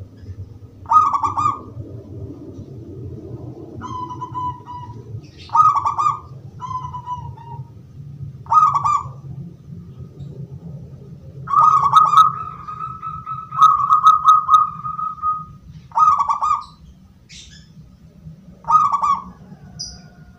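Zebra dove (perkutut) of the gedong mengo type singing in its cage: a string of short, clear cooing phrases at one pitch, repeated every one to three seconds, with two longer drawn-out phrases in the middle. A steady low hum lies underneath.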